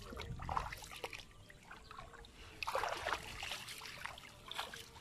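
Shallow water splashing and trickling as a mesh fishing trap is handled: short, irregular small splashes, a little busier about three seconds in.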